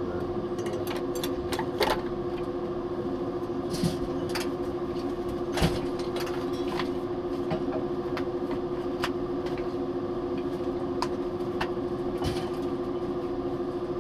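Steady hum of the space station's ventilation fans and equipment, with one held tone, under scattered clicks and knocks of cargo bags and fittings being handled by hand; the loudest knock comes about five and a half seconds in.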